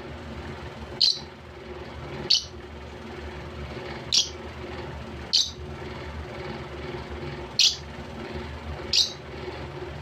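Caged lovebird giving short, shrill chirps, six in all, spaced one to two seconds apart, over a steady low hum.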